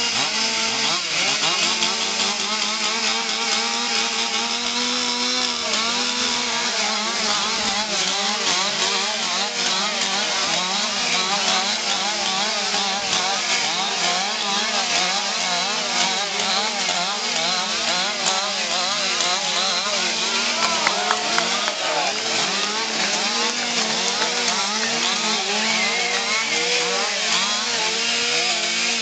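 Several chainsaws revving up and down over and over, each saw's pitch rising and dropping again with every quick cut as they limb poles studded with stick branches, the saws overlapping without a break.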